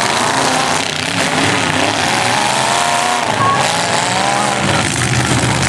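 Demolition derby cars' engines revving loudly over a continuous din, with one engine's pitch rising and falling around the middle.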